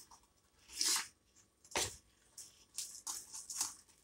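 Steel spoon stirring thick wheat-flour and jaggery batter in a steel bowl: a handful of short, wet squishes and scrapes at uneven intervals.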